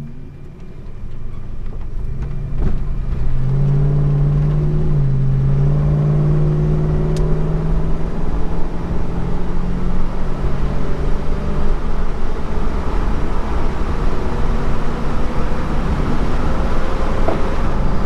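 Holden HK car engine pulling away and accelerating, louder over the first few seconds with a step up in engine note about five seconds in, then running steadily under road and tyre noise.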